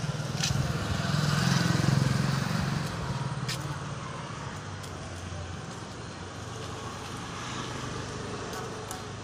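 A motor vehicle's engine running nearby: a steady low hum, louder in the first three seconds, then steady.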